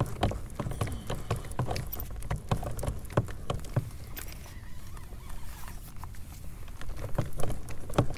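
Irregular light clicks and knocks from fishing gear and handling in a kayak while a hooked fish is being played, over a steady low rumble.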